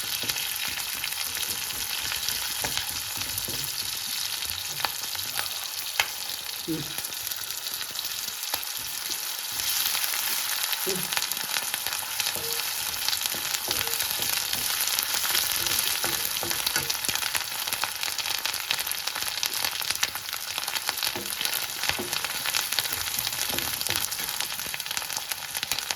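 Garlic, onion and ginger sizzling in hot oil in a pan, a steady frying hiss that grows louder about ten seconds in, with occasional light clicks as it is stirred.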